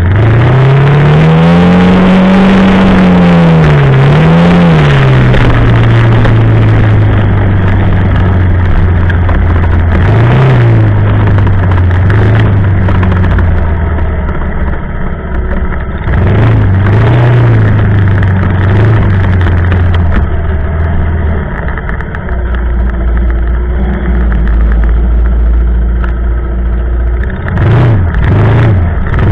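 ATV (quad bike) engine running under way, revving up and down as the rider accelerates and eases off, with a big rise and fall in pitch in the first few seconds and several smaller ones later. A steady rushing noise runs underneath.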